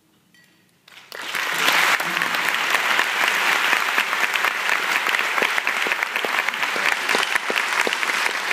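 Near silence for about a second, then a theatre audience breaks into applause, which carries on at a steady level.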